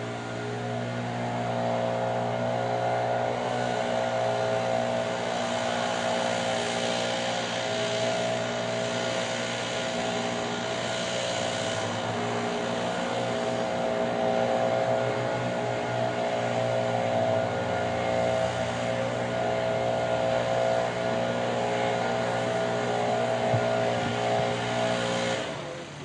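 Diesel locomotive engine running steadily at a constant speed, a continuous low hum with a strong mid-pitched drone on top.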